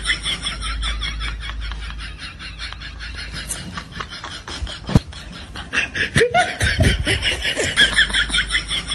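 Laughter: a rapid, even run of snickering ha-ha pulses that fades in the middle and grows louder again near the end. A single sharp thump sounds about five seconds in.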